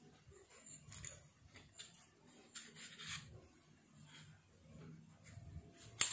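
Handling of a cast-iron pillow block bearing and its steel shaft: faint rubbing and small clicks as the housing and shaft are turned in the hands, with one sharp click near the end.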